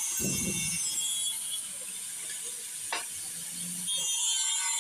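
Electric angle grinder cutting into the steel edge of an iron folding door, a steady high-pitched whine. It eases off a little in the middle and bites in harder again near the end.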